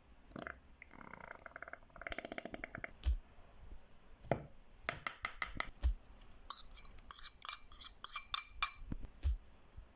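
Kitchen utensils clinking against dishes: a quick run of rattling strokes about a second in, then scattered sharp clinks and knocks with brief ringing.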